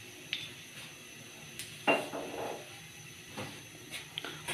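A few scattered clicks and knocks of cookware and a non-stick karahi being handled, with one louder clatter about two seconds in.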